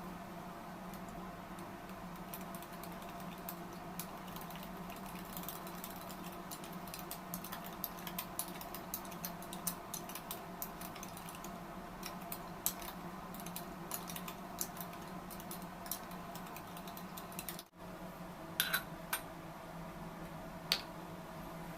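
Many small, light clicks and taps over a steady low hum, most frequent in the middle, with a brief dropout about two-thirds through and a few sharper taps near the end.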